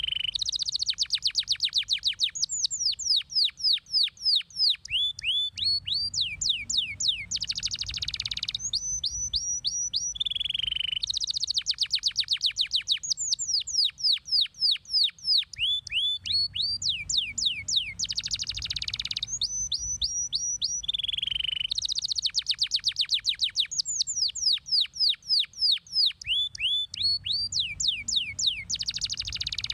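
Domestic canary singing: fast trills of short, high notes that each sweep downward, strung together in rolls, with the same sequence of phrases coming round about every ten seconds.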